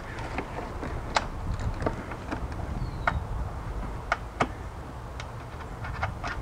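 Light, irregular clicks and taps of small metal parts and hand tools as a brake-line nut is being worked onto a stud in a car's engine bay. A short falling chirp is heard about three seconds in.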